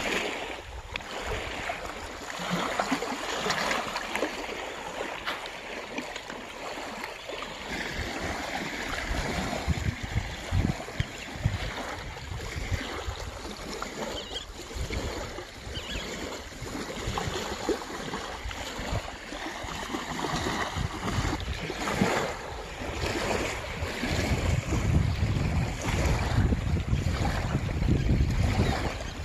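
Small waves lapping on a gravel shore, with wind buffeting the microphone. The low wind rumble grows heavier in the last few seconds.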